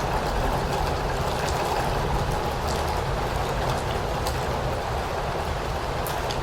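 Steady rainfall: an even hiss with scattered sharp drop ticks and a low rumble underneath.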